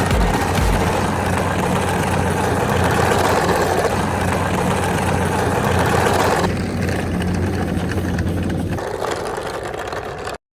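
A motor running steadily. Its sound thins out about six and a half seconds in and again near nine seconds, then cuts off abruptly.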